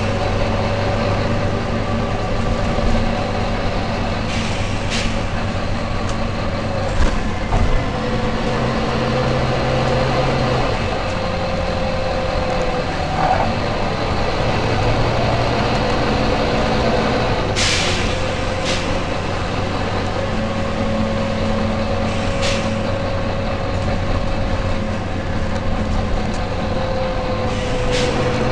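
Volvo B9TL double-decker bus running with a steady engine drone and a held whine, broken several times by short sharp hisses of compressed air from its air system.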